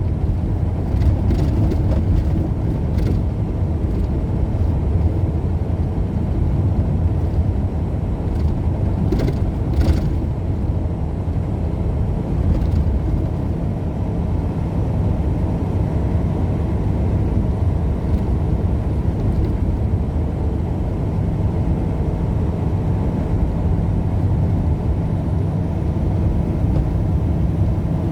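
Steady road and engine noise heard from inside the cabin of a moving vehicle, with a couple of faint clicks about nine and ten seconds in.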